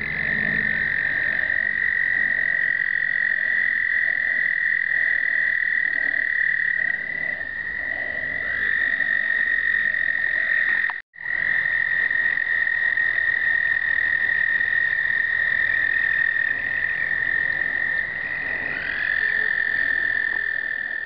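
Chorus of male American toads giving their long, steady, high breeding trills, several overlapping at slightly different pitches. New trills join about halfway through and again near the end, and the sound breaks off for an instant just past the middle.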